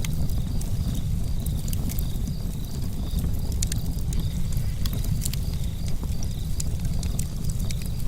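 Campfire burning: irregular sharp crackles and pops over a steady low rumble of the flames.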